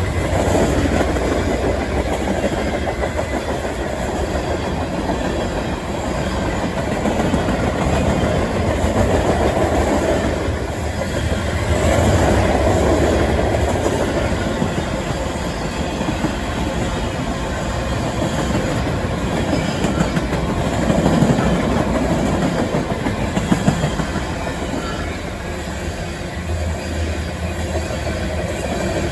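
A freight train's cars rolling past, wheels clicking steadily over the rail joints, the rumble swelling and easing as cars go by.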